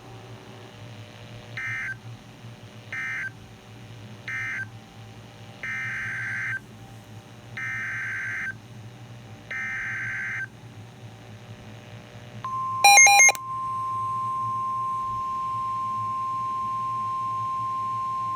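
Emergency Alert System SAME data bursts from NOAA Weather Radio: three short warbling bursts ending the first warning, then three longer bursts opening the next. About 12 seconds in, the steady single-pitch weather radio warning alarm tone begins and holds, with a brief harsh buzzing beep over its start.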